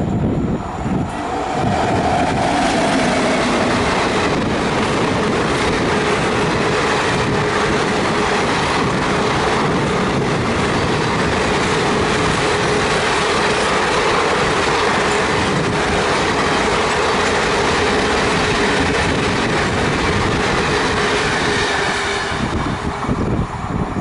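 Bihar Sampark Kranti Express, hauled by a WAP7 electric locomotive, passing at speed: a long, loud rush of coaches with wheels clattering on the rails and a faint steady whine. The noise swells in the first couple of seconds and drops away about 22 seconds in as the last coach goes by.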